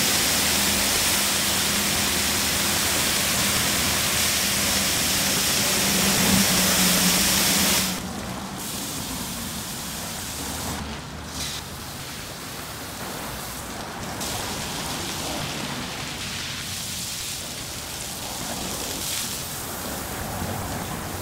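High-pressure water jets of a LaserWash touchless automatic car wash spraying a vehicle: a loud, steady hiss with a low hum beneath it. About eight seconds in the spray drops off sharply to a quieter, uneven hiss.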